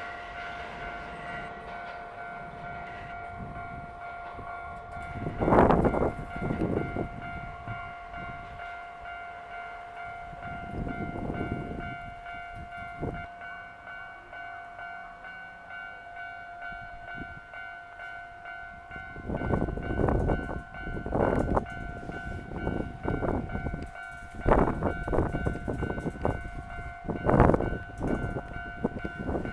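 Level-crossing warning bell ringing steadily while trains pass, their wheels clattering over the rail joints in loud bursts, first about six seconds in and then repeatedly through the second half.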